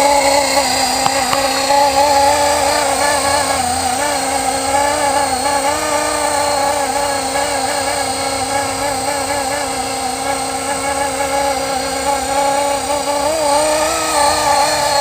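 Blade SR radio-controlled electric helicopter in flight, running in a Hughes 500D scale fuselage: a steady mechanical whine of motor, gears and rotors whose pitch wavers slightly up and down.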